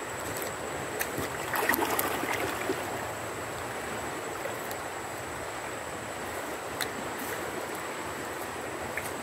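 Flowing river water, a steady rushing, with a few brief splashes and knocks between about one and three seconds in.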